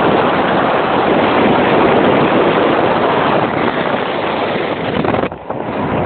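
Wind and road noise from a moving car rushing steadily over a phone's microphone. The noise drops away briefly near the end.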